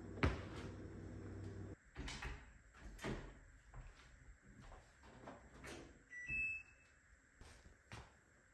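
A sharp click near the start, then a low steady hum cuts off and several knocks and clicks follow, like a door or cupboard being handled. About six seconds in comes a short two-note electronic beep from an appliance.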